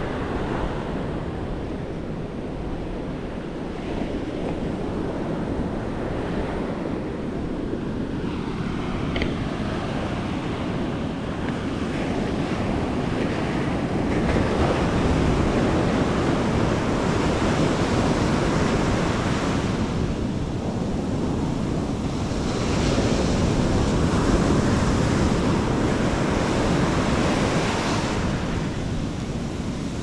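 Ocean surf breaking and its foamy wash sliding up the sand, with wind on the microphone. The wash gets louder about halfway through and again a little later.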